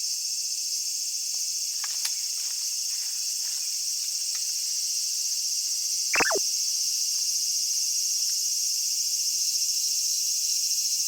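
Steady, high-pitched shrilling of a summer insect chorus, with a fine rapid pulse running through it. About six seconds in, a single short call slides sharply down in pitch over it.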